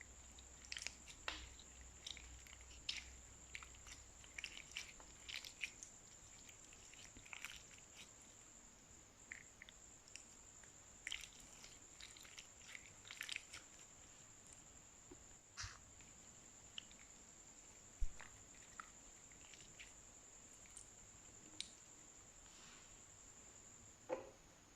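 Slime being worked by hand with makeup mixed in, giving scattered small sticky clicks, pops and crackles, busier in the first half. A faint steady high-pitched whine runs behind them.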